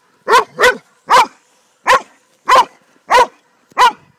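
Hound dog barking at a snake: seven short, loud barks in an even rhythm, spaced about half a second to a second apart.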